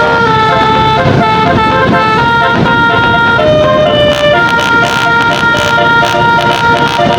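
Bus 'telolet basuri' multi-tone musical horn playing a melody: loud held horn notes stepping from one pitch to the next, each lasting a fraction of a second to about a second.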